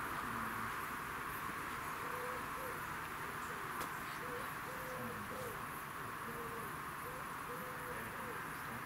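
Evening outdoor ambience: a steady high insect chorus, typical of crickets, with short low hoot-like calls repeating about once a second from about two seconds in.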